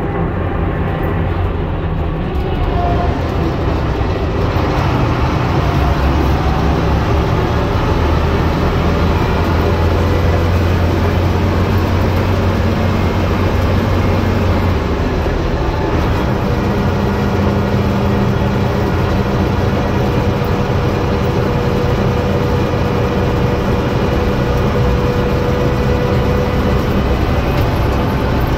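Leyland 501 six-cylinder diesel engine of a Bristol VR double-decker bus running under way, heard from inside the upper deck along with road noise. The engine note changes about halfway through.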